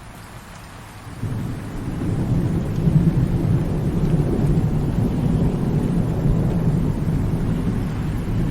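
Thunderstorm: a low rumble of thunder swells about a second in and rolls on over a steady hiss of rain.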